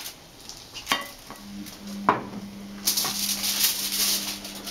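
Frying pan and foil-covered plate knocking together as a potato omelette is turned over: sharp clinks about one and two seconds in, then hissing and crackling for the last couple of seconds, over a steady low hum.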